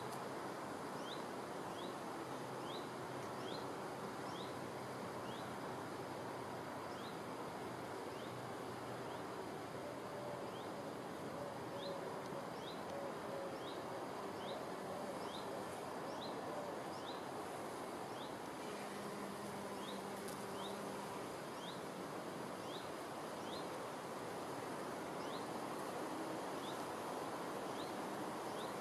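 Honeybee buzzing among flowers, its wing hum coming and going over a steady outdoor hiss. A short, high rising chirp repeats a little more than once a second throughout.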